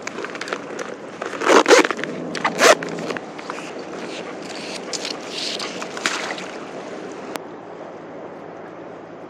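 Zipper of a mesh fish keep bag being drawn, with rustling and scraping of the bag and rope on concrete. The two loudest rasps come about one and a half and two and a half seconds in. Lighter scrapes follow, then it quietens near the end.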